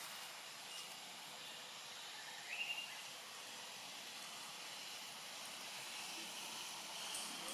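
Steady outdoor forest background hiss, with one short high chirping call about two and a half seconds in.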